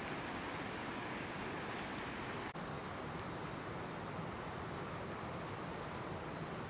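Steady, even rushing noise of outdoor ambience, with a short click and a brief dropout about two and a half seconds in.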